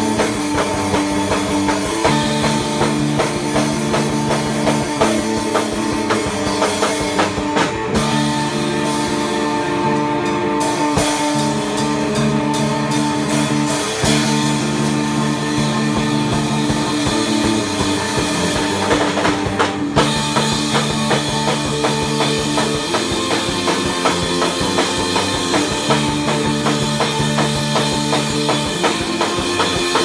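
A rock band playing live, with a drum kit and guitars.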